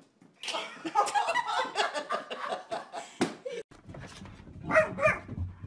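People laughing over the clatter of a dog's booted feet on a hardwood floor; about five seconds in, a dog gives two short barks.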